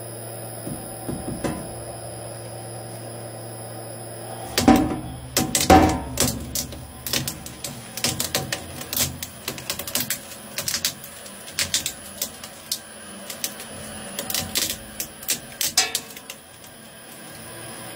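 A twin-shaft shredder runs with a steady hum. About five seconds in, its interlocking steel cutters grab a rubber mallet with two loud cracks. A long run of rapid, irregular cracks and snaps follows as the mallet's handle is chewed into pieces.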